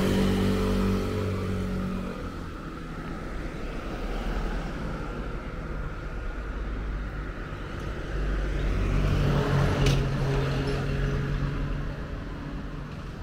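Road traffic going past. At the start one vehicle pulls away, its engine note dropping and fading. Another vehicle comes up, passes close just under ten seconds in and draws off, over a steady traffic hum.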